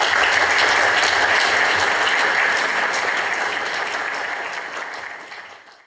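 Audience applauding steadily after a speech, the clapping fading out near the end.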